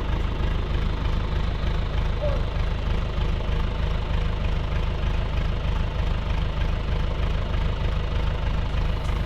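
Engine idling steadily with an even low rumble.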